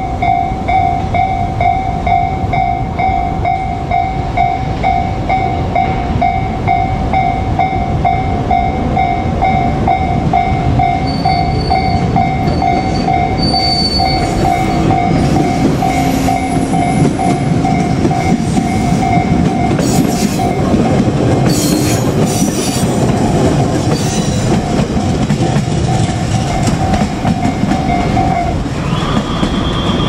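Japanese level-crossing warning bell ringing in a steady, repeating ding while a JR Kyushu 817 series electric train approaches and passes, its wheels clattering over the rail joints. The bell stops near the end, and a different, higher bell takes over.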